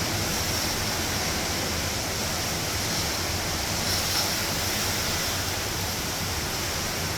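Steady rush of hurricane wind and heavy rain, an even noise that holds without a break.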